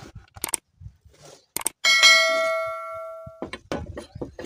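A metal oil-pump part strikes the metal work surface: one loud clang that rings on, bell-like, for about a second and a half. Lighter clicks and taps come from the parts being handled before and after it.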